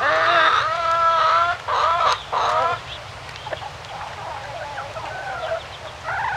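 Live chickens squawking as they are held upside down by their legs: a long, loud, wavering squawk at the start, two more loud squawks about two seconds in, then softer scattered clucks and a short squawk near the end.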